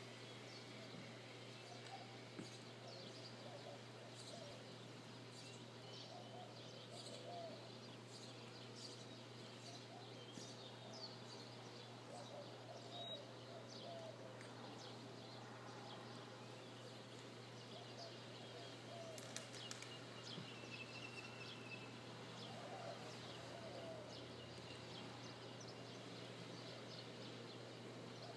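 Faint outdoor ambience of many brief bird chirps and calls scattered throughout, over a steady low hum.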